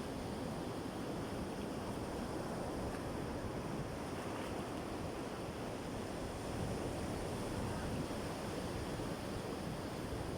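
Sea waves washing on the shore, a steady rushing surf.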